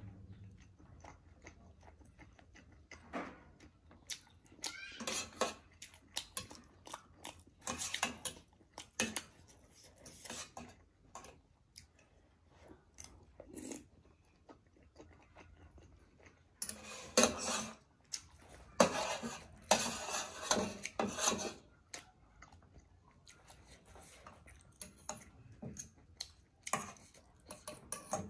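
Close-up eating sounds: chewing and mouth noises over momo dumplings, with a spoon and fork clicking against a metal plate and a small steel sauce bowl. The loudest clusters of chewing and clatter come about a third of the way in and again past the middle.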